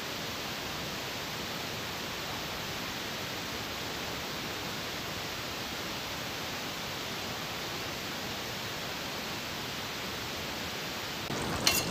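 Steady, even hiss with no distinct events, then a sharp click near the end.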